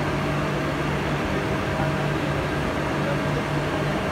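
Girth gear and pinion drive running, a steady mechanical hum with a low drone and a fainter steady whine above it.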